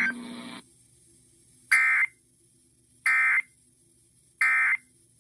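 Emergency Alert System end-of-message code: three short, raspy electronic data bursts, each about a third of a second long, with about a second between them. They signal the end of the weather warning broadcast.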